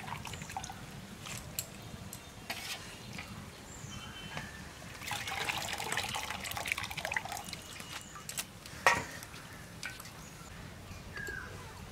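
Water dripping and trickling off blanched spinach as it is lifted out of a steel bowl of cold water with a ladle, with a few light clicks. A sharp knock about three-quarters of the way through.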